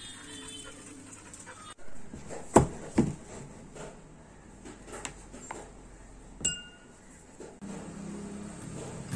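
A metal spoon clinks against glass dessert bowls, with a few sharp knocks on a wooden table. The clink about two-thirds of the way through rings briefly.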